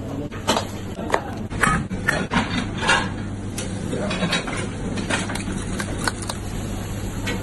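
Kitchen food-prep noise: irregular knocks and clatter of utensils and ingredients being handled, over a steady low hum.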